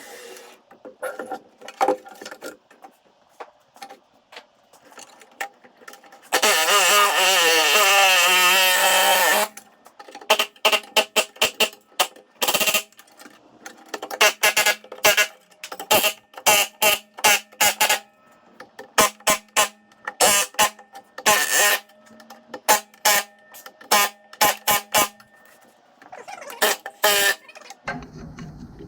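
Metalwork on a car's floor pan: a power tool runs with a wavering whine for about three seconds, then come many short, sharp metallic hits and bursts at irregular intervals.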